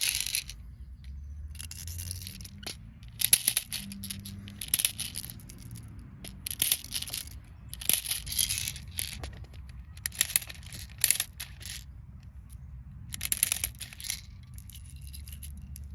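Handling sounds of a Glock 17 gas-blowback airsoft pistol: short clusters of clicks and rustling, coming every second or two.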